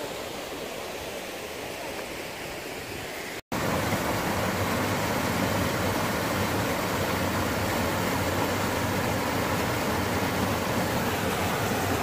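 River water rushing over rocks and small cascades in a rocky gorge, a steady churning rush. There is a brief break about three and a half seconds in, after which the rush is louder and fuller, as from closer to the white water.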